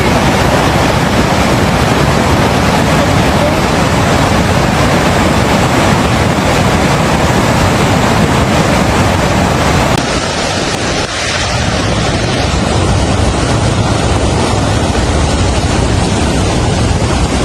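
Loud, steady rush of fast-flowing floodwater, with wind on the microphone; the sound changes abruptly about ten seconds in.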